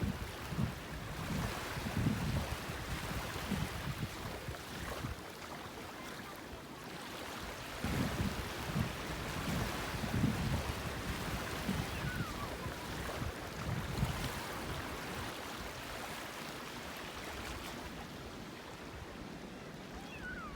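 Wind gusting against the microphone in irregular low buffets, over a steady rushing noise.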